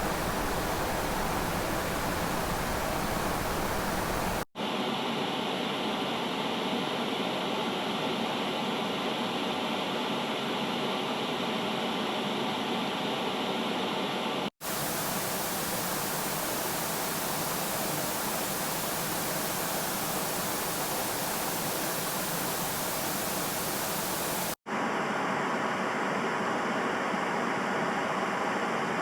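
Steady static-like hiss played as back-to-back clips of about ten seconds, each ending in an abrupt cut. The clips alternate between a full rushing hiss with deep rumble and a thinner, brighter hiss with almost no low end.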